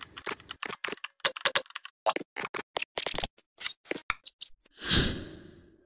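Computer keyboard typing sound effect: rapid, irregular key clicks. About five seconds in, a louder burst of noise rises and fades away over about a second.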